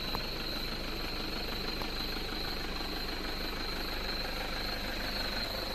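A steady engine-like hum that runs without change, with a thin constant high-pitched whine over it.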